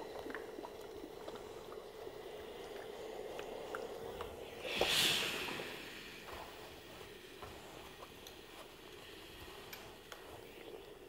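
Soft rustling and light taps of cotton fabric being pressed and handled with an iron on a mat, with one brief loud hiss about five seconds in.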